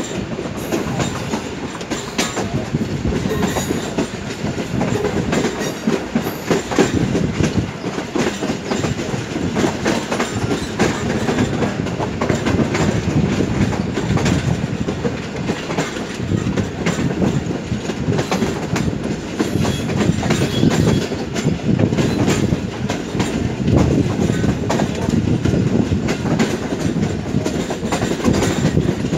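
Passenger coaches of the 13UP Awam Express running on the rails, heard from an open carriage window: a steady, loud rumble with many sharp wheel clicks over the rail joints.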